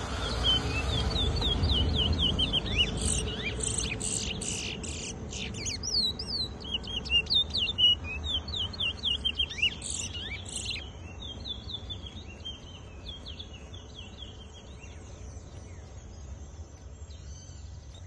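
Towa-towa seed finch singing in a bird-singing race: fast runs of short, down-slurred whistled notes. The song is dense and loud for about the first eleven seconds, then thins to sparser, fainter notes.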